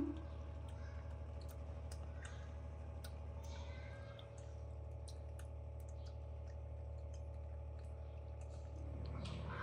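Small monkeys eating, handling their food with faint scattered clicks and taps over a steady low hum.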